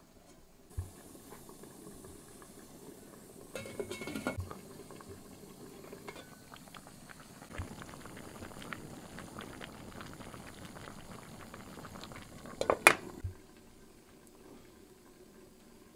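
Pot of stuffed cabbage rolls boiling in broth: a dense bubbling crackle of many small pops. A cluster of clatters about four seconds in and a sharp clank, the loudest sound, near 13 seconds.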